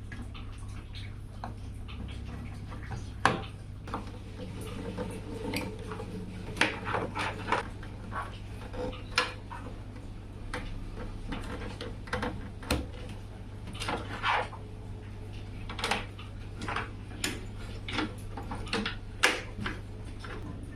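Irregular clicks, taps and light clattering of hard parts being handled, some in quick clusters, over a steady low hum.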